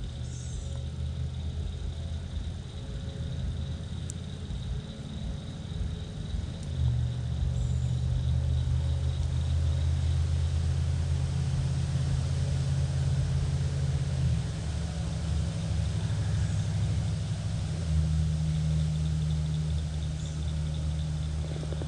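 A motor running with a steady low hum and a faint high whine, stepping up in level about 7 seconds in, dropping back about 14 seconds in and rising again about 18 seconds in. A few faint short chirps sound over it.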